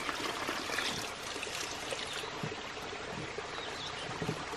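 Steady rush of running creek water, with water trickling from a bucket intake box, and a few faint knocks.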